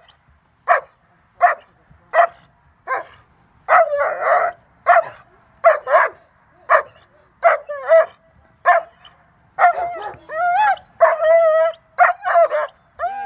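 An adult German Shepherd-type dog barking in a steady rhythm, about one bark every 0.7 seconds. From about ten seconds in, the barks turn into longer, pitched, wavering yelps.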